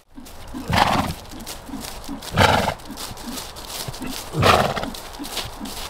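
Horse snorting three times, about two seconds apart, each a short, loud, breathy blast, over soft, regular hoofbeats as it moves around the lunging circle.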